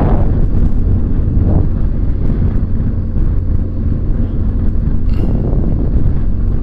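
Motorcycle on the move at road speed: a steady engine drone mixed with wind rushing over the microphone. The rush swells briefly at the start, again about a second and a half in, and again about five seconds in.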